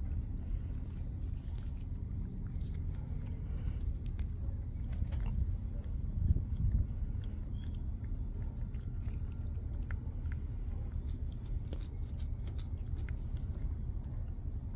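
A cat licking a puree treat from a squeeze tube, its tongue making small wet clicks, over a steady low rumble. There is one louder bump about six seconds in.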